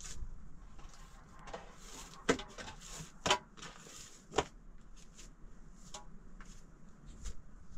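Three sharp knocks about a second apart, with smaller clicks and handling noises between them.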